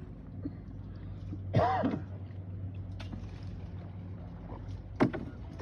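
Boat motor running steadily with a low hum. A short voice-like call rises and falls about a second and a half in, and a brief sharp throaty sound comes near the end.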